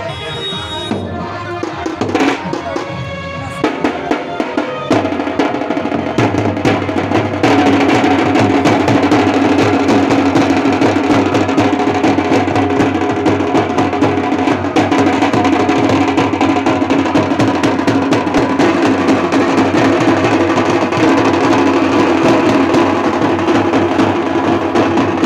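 Large barrel drum beaten with sticks in a fast, driving rhythm of dense rolls, becoming louder and fuller about seven seconds in.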